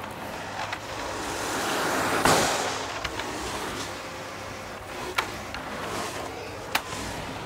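Canister vacuum cleaner running, a steady motor hum under a rushing suction noise that swells to a peak a couple of seconds in, as the floor nozzle is swept over artificial-turf matting, then eases. A few sharp clicks are scattered through it.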